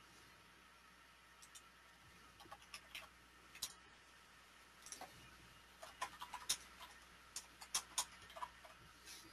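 Faint computer mouse clicks and keyboard typing: a few scattered clicks, then a quicker run of keystrokes in the second half.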